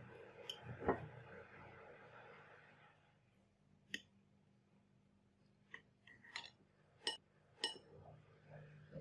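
Knife and fork clicking against a ceramic plate while cutting through a toasted sandwich. It is a handful of short, faint clicks, the loudest about a second in and the rest scattered from about four seconds in.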